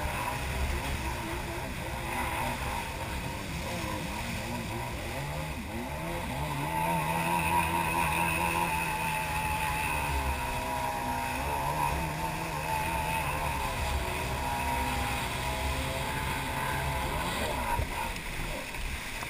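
Jet ski engine running at speed, its pitch wavering up and down as the craft rides across boat wake, over rushing water and spray.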